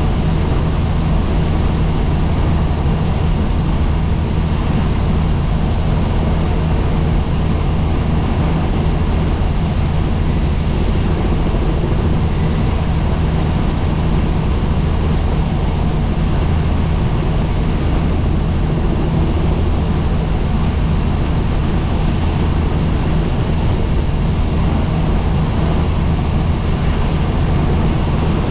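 Helicopter in flight: a steady, loud low drone of engine and rotor that does not change.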